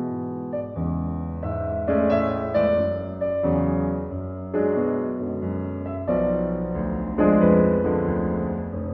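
Instrumental keyboard music: piano-like chords held and changed about once a second, with no vocals.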